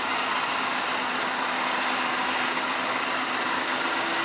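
Electric motorcycle's drive motor running on a single 12-volt battery, spinning the rear tire through the drive shaft: a steady whir with a low hum.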